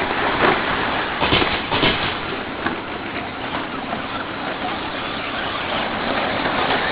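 Electric RC short-course trucks racing on a dirt track: steady motor and tyre noise, with a few short knocks between about half a second and two seconds in.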